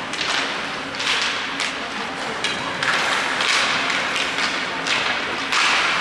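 Play-by-play noise of a team game: repeated thuds and taps with short bursts of scraping hiss over a steady crowd-and-room hubbub.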